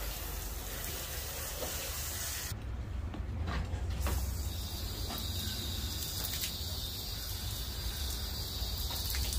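Garden hose spray nozzle spraying water onto a van's side windows and metal body, a steady hiss. The hiss thins out briefly about two and a half seconds in.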